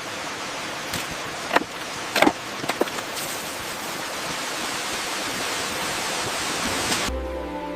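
A steady hissing noise with a few sharp knocks in the first three seconds; the hiss cuts off suddenly near the end.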